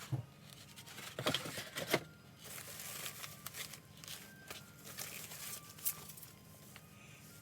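Faint handling noises: scattered clicks, rustling and tearing of packaging being unwrapped, loudest about one and two seconds in.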